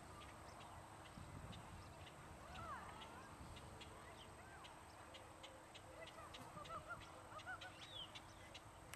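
Faint honking bird calls, short and bending in pitch, scattered through, with a quick, faint ticking above them and a low rumble underneath.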